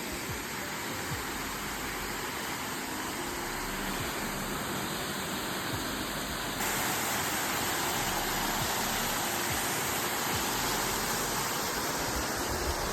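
Waterfall: a steady rush of falling water, which becomes abruptly louder about six and a half seconds in.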